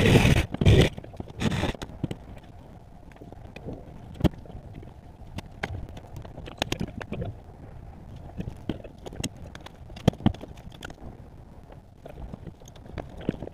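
Irregular knocks and clatter from yard demolition work over a low rumble, with a loud noisy burst right at the start.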